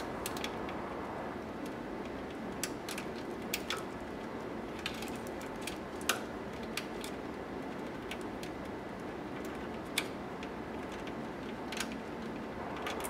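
Scattered small clicks and taps of plastic wire connectors and cables being worked through a hole in a cassette deck's metal chassis, at irregular moments over a steady background hiss.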